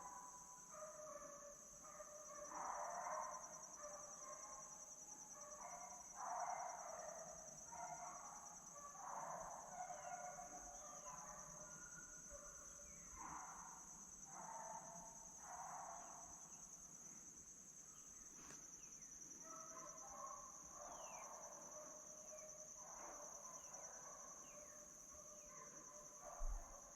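Faint, irregular baying of deer-hunting hounds running, a call every second or two, over a steady high-pitched insect drone. A single short thump comes near the end.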